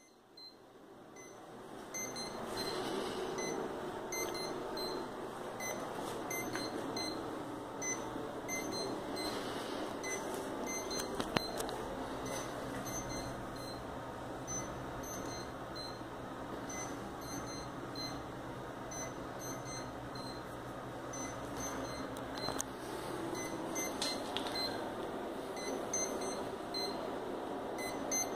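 Short electronic beeps recurring irregularly over a steady background hum.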